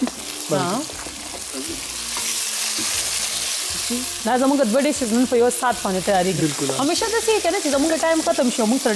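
Onions and chopped tomatoes sizzling in hot oil in a karahi, stirred with a wooden spatula. From about four seconds in a person's voice talks over the frying.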